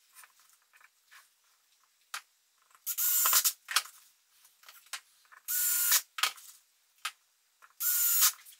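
Cordless screw gun with a Phillips bit driving screws into a wooden hive box frame, in three short whining bursts of under a second each. Light clicks and knocks of the wooden parts being handled come between them.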